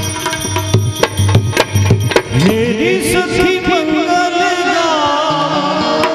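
Gujarati devotional bhajan music: hand-drum strokes over a steady drone for about two seconds, then a voice comes in singing a long, ornamented line with sliding pitch, held over the drone.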